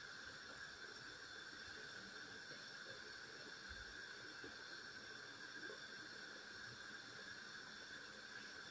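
Pot of chicken and red kuri squash soup simmering: faint, scattered soft bubbling pops over a steady faint hiss.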